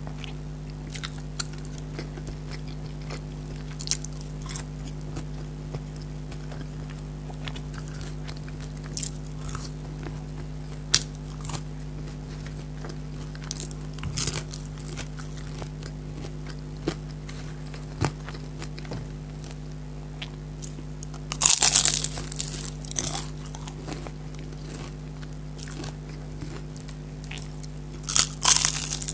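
A person eating close to the microphone: steady chewing with sharp, wet mouth clicks, and louder bursts of crunching about two-thirds of the way through and again near the end. A steady low hum runs underneath.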